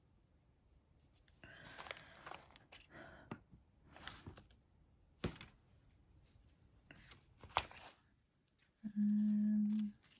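Craft supplies being handled on a desk: rustling with a few sharp clicks, as the sheet of adhesive gems is picked up. Near the end comes a steady low hum lasting about a second, the loudest sound.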